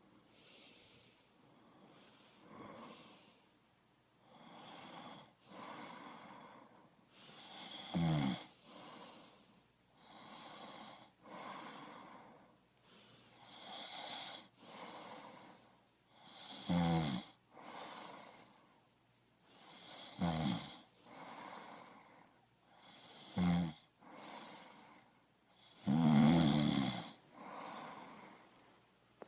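Human breathing, in and out about once every second or so. Five louder, deeper breaths have a pitched rattle in them, like snores; the longest comes near the end.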